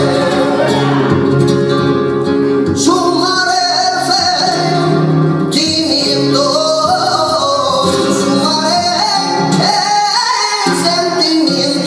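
Flamenco tangos: a man singing long, ornamented, wavering phrases, accompanied by a flamenco guitar.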